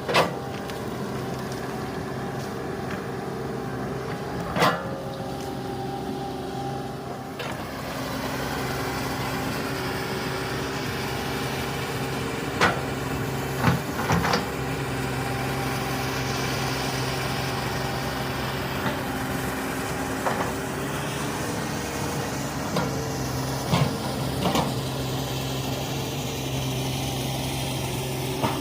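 Komatsu excavator's diesel engine running steadily while working, with several short sharp knocks and clanks from the machine at irregular moments; the engine gets a little louder about eight seconds in.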